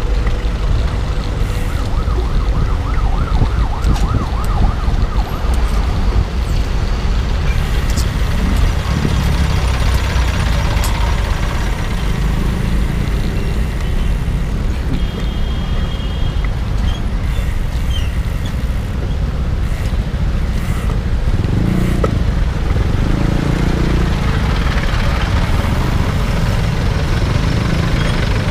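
Road traffic noise, a steady low rumble of passing vehicles.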